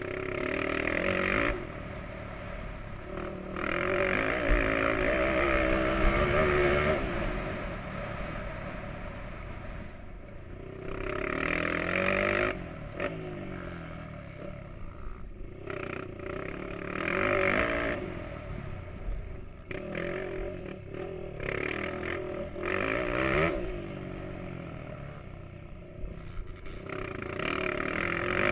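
Motocross bike engine heard from a camera mounted on the bike, revving hard and easing off again and again as the rider accelerates along the track, its pitch climbing and dropping with each surge.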